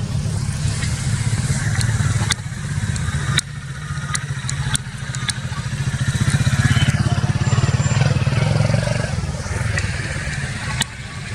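An engine running steadily, with a low even throb that swells a little in the middle, and a few sharp clicks over it.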